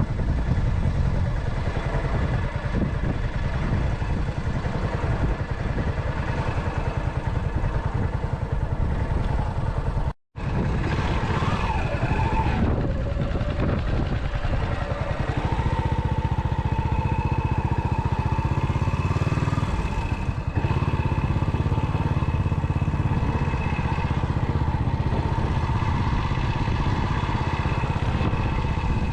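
Yamaha SR single-cylinder motorcycle engine running under way, with a fast steady thumping. There is a brief cut about ten seconds in. Just after it the pitch rises and falls with throttle changes, then settles to a steady cruise.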